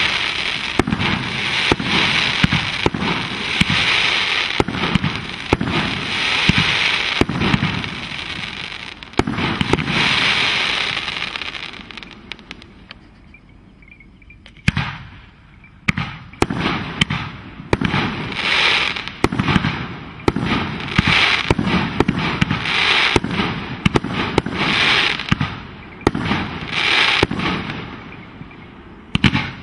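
Fireworks going off in a dense barrage of bangs and crackling that eases off about twelve seconds in. About fifteen seconds in, a run of separate bursts follows, one or two a second, each with a crackling tail, and there is a last bang near the end.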